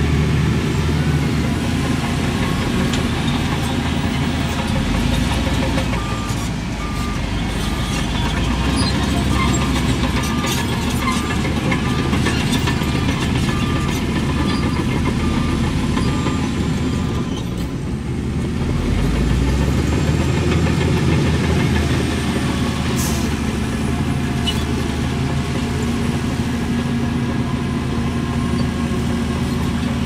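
Diesel engines of heavy earthmoving machinery running steadily, with a reversing alarm beeping at an even pace for about ten seconds in the middle.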